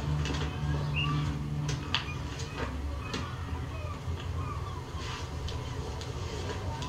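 A TV drama's soundtrack picked up from the television's speaker: a low music drone that ends about two seconds in, then a quiet background with scattered faint clicks.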